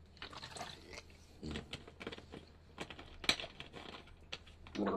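Close-up eating sounds: scattered clicks and taps of a plastic drinking bottle being handled, then chewing with full cheeks. A couple of brief throat or mouth sounds come about a second and a half in and near the end.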